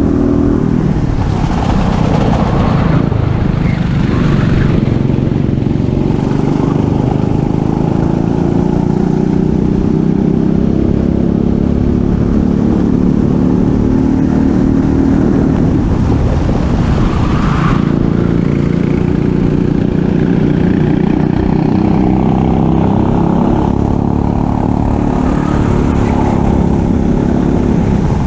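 Racing kart engine running at high revs on track, its pitch dipping and then climbing again twice as the kart slows and accelerates.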